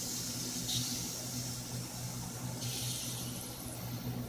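A steady high hiss that cuts off sharply about two and a half seconds in, over a steady low electrical-sounding hum.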